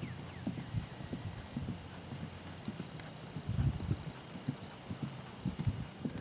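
Hoofbeats of an American Quarter Horse mare trotting and cantering on grass under saddle: a run of dull, regular thuds, louder for a moment a little past halfway.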